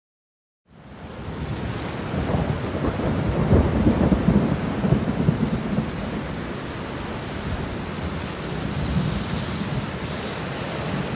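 Rain falling steadily with a low roll of thunder that swells about two seconds in and dies away a few seconds later. The sound fades in from silence at the start.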